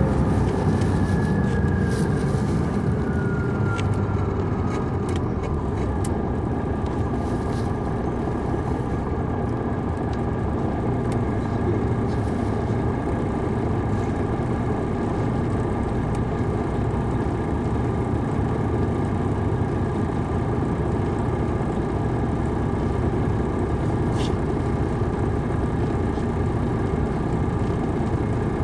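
Detroit Diesel Series 60 engine of a 2002 MCI D4000 coach running steadily, heard from inside the bus while it drives. A whine falls in pitch over the first few seconds, and there are a few faint clicks.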